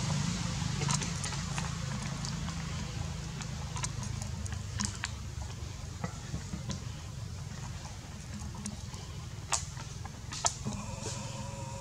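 Clear plastic cup clicking and crinkling now and then as a baby macaque handles it, over a steady low hum.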